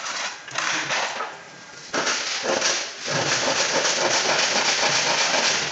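A sharp click about two seconds in, then a stationary power saw with a thin vertical blade cutting through an MDF trim panel: a loud, steady cutting noise with a fast, even flutter.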